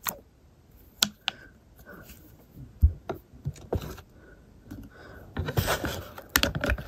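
Plastic mixing stick in a plastic tub of body wash: a few separate clicks and taps at first, then, from about three-quarters of the way in, rapid clattering and scraping against the tub's plastic sides as the thick body wash is stirred.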